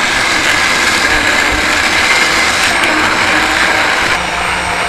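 Hand-held immersion blender running in a stainless steel saucepan, puréeing boiled apricots into a coulis. The motor runs loud and steady, its sound shifts slightly about four seconds in, and it cuts off near the end.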